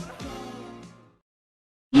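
The end of an ice hockey goal song fades out, then, after a brief silence, an ice hockey goal horn starts just before the end: a loud, steady horn sounding several tones at once.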